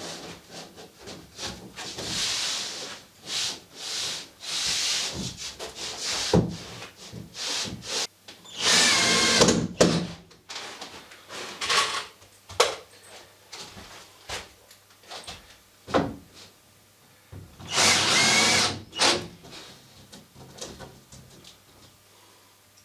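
Power drill driving screws into wall sheathing: two runs of about a second and a half each, the motor whine climbing as each screw goes in, with knocks and rustling of the boards being handled between them.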